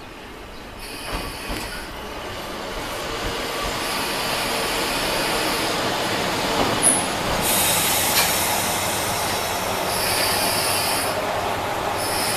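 Minami-Aso Railway MT-3000 diesel railcar rolling into the station, growing louder as it nears. Its wheels squeal on and off in high-pitched stretches, with a sharp click about seven seconds in.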